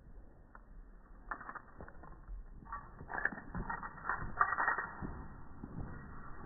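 A dog shaking its head hard, slowed down in slow-motion playback so the shake sounds lowered and drawn out into creaking, rattling clicks. It is loudest as a dense flurry of rattles about three to five seconds in.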